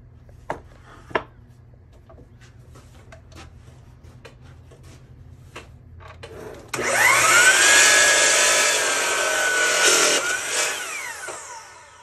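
A few light knocks and taps, then a Kobalt miter saw's motor starts abruptly about two-thirds of the way in, with a rising whine as the blade spins up. It runs steady through a cut in a board, then winds down with a falling whine near the end.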